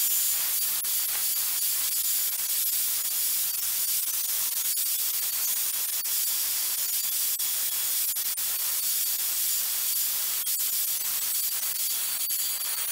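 Milwaukee angle grinder with a diamond blade running at steady speed, cutting parallel slots into a ceramic tile: a steady, high-pitched hiss with a faint motor whine over it.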